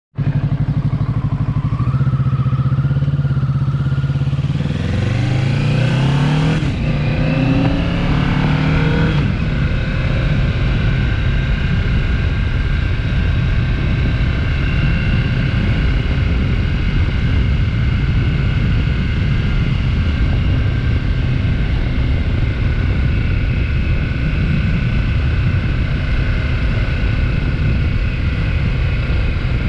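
Kawasaki Ninja 650 parallel-twin engine running steadily, then rising in pitch twice as it accelerates through the gears between about five and nine seconds in. After that a steady rush of wind and engine noise while riding along.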